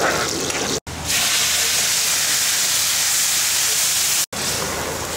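Onions frying in oil in an aluminium pan on a gas burner. About a second in, a loud, steady sizzling hiss begins and lasts about three seconds while the pan throws up steam, as the frying pan's contents meet wet ingredients. It drops back to softer frying sizzle near the end.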